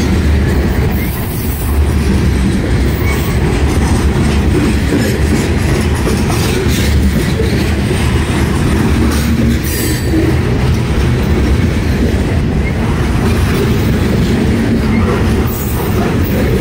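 Loaded freight train of BNSF covered grain hopper cars rolling past at speed, with the steady loud noise of steel wheels running on the rails.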